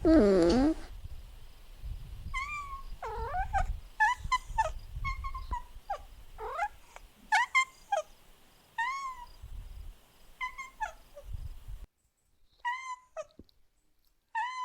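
Kittens mewing over and over: short, high calls that rise and fall, one or two a second, with a lower, louder call right at the start. The background drops out suddenly near the end, and a few more mews follow.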